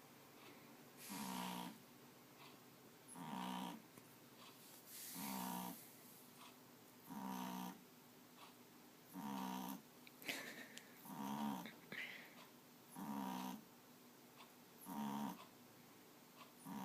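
Loud, regular snoring: a short, pitched snore about every two seconds, eight in all.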